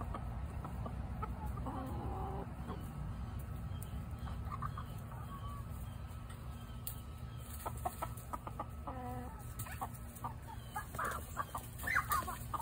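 Chickens clucking in short calls, coming quicker and louder near the end as the birds are chased.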